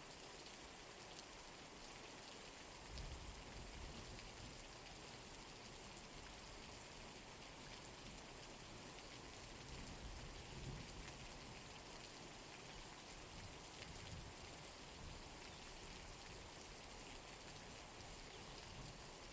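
Steady rain falling, a soft, even hiss of drops, with a few brief low rumbles swelling up now and then.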